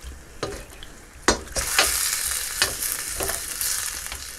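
Pork belly pieces sizzling in a stainless steel frying pan on a gas hob while a spatula stirs and scrapes them against the pan. A sharp knock about a second in, after which the sizzle gets much louder, with more knocks and scrapes as the stirring goes on.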